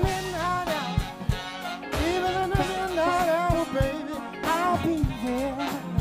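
Live band music: a singer's voice sliding up and down through long runs over the band, with a drum beat thumping about twice a second.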